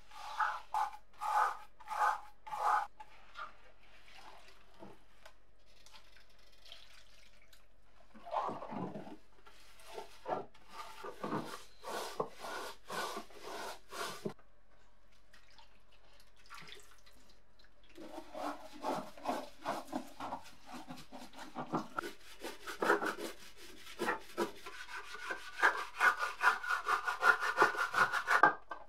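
Wet scrubbing of a rusty metal scale pan in a tub of liquid: rhythmic back-and-forth rubbing strokes in three spells, the last the fastest and loudest.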